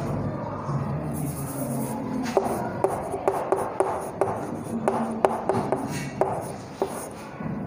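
Chalk writing on a chalkboard: scratching strokes, then a run of sharp taps, about three a second, from about two seconds in.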